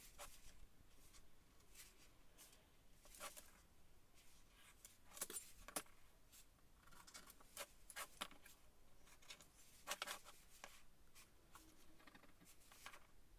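Quiet scratching of a pen marking out on a pine board, with scattered light taps and clicks as a metal ruler, a speed square and a spray can used as a corner template are handled and set down on it. The sharpest taps come about five seconds in and again about ten seconds in.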